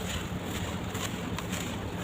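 Red dirt crumbling and soaking in water: a steady soft hiss with a low hum underneath and a couple of faint crackles.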